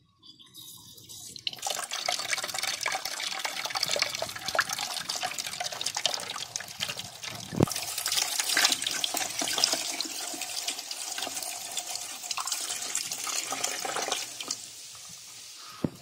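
Water pouring into a steel bowl holding live climbing perch, starting about a second and a half in and easing off near the end. A sharp knock about halfway through.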